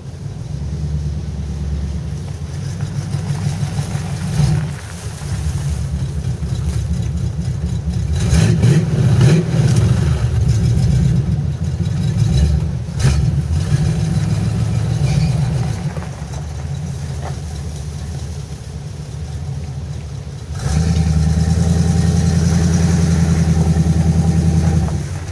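Carbureted Chevrolet 350 V8 running with no tailpipes, loud and low, blipped up several times in the middle. Near the end it is held at higher revs for about four seconds, then drops back.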